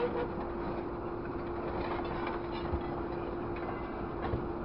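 Hydraulic scrap grapple machine running with a steady hum while its orange-peel grab closes on and lifts scrap metal, with two short knocks of metal in the second half.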